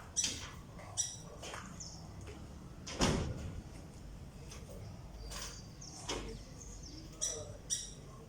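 Birds giving short, sharp calls, several of them spaced over the seconds, with a louder rushing sweep about three seconds in.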